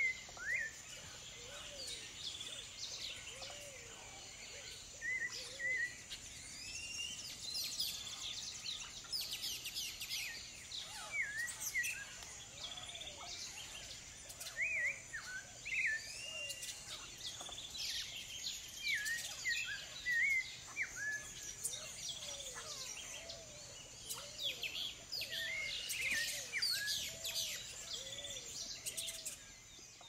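A chorus of several wild birds calling and singing: many short chirps and quick whistled notes, with a series of low, arched notes repeating underneath. A steady high-pitched tone runs throughout.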